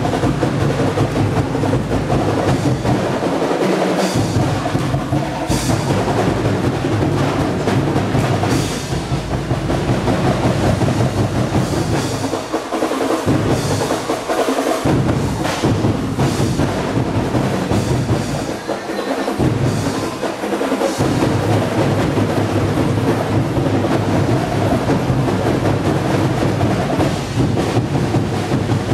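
Festival street-dance drum ensemble of bass drums and snares playing a loud, fast, driving rhythm. The deepest drums drop out briefly a few times.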